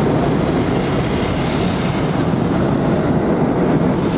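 Hot-air balloon's propane burner firing, a loud steady rushing noise with no break.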